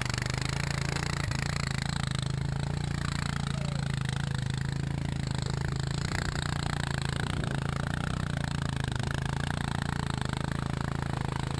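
ATV engine running steadily, a constant low drone.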